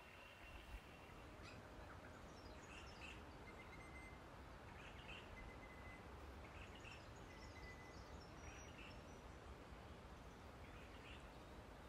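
Faint outdoor ambience with wild birds calling: short chirps every second or two and a few thin whistled notes, over a steady low background noise.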